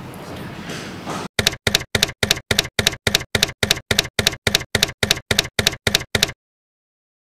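After about a second of faint room noise, a typewriter sound effect: evenly spaced key strikes, about three and a half a second, that stop suddenly about five seconds later.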